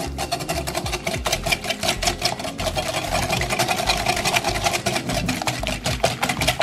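Wire whisk beating eggs and sugar in a glass mixing bowl: a fast, steady clinking of the wires against the glass.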